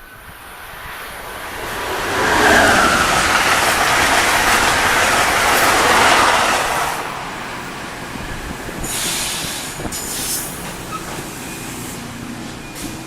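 Electric passenger train passing at speed: a rush of wheel and rail noise that builds over about two seconds, stays loud for about four, then falls away, with brief high-pitched hisses near the end.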